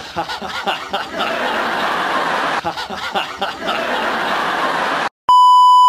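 Sitcom studio audience laughing for about five seconds. Near the end a loud, steady, high beep tone comes in after a brief gap.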